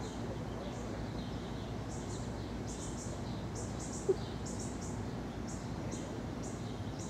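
A bird chirping again and again in short high notes over a steady low outdoor rumble. A single short sharp blip about four seconds in is the loudest sound.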